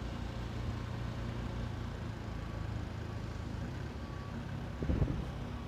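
A vehicle engine idling with a steady low hum, and a brief louder sound about five seconds in.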